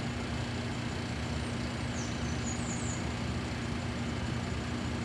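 Steady low mechanical hum over a noisy background, with a few faint, short high chirps about two to three seconds in.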